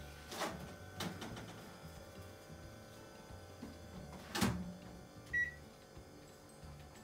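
Microwave oven running with a steady faint hum, with a few short soft handling noises and one short high beep about five seconds in.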